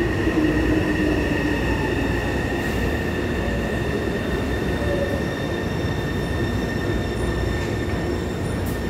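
Taipei Metro C301 train pulling into the station along the platform and slowing: a steady rumble of wheels on rail with a steady high whine over it.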